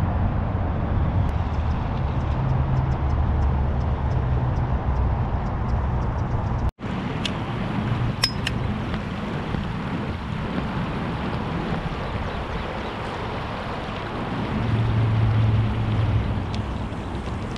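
Steady outdoor noise of wind on the microphone and flowing river water over a riffle. The sound drops out for an instant about seven seconds in, and a few sharp clicks follow.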